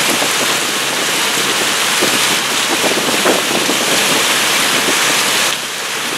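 Wind rushing over the microphone and water rushing past the hull of a motorboat under way. The noise eases slightly about five and a half seconds in.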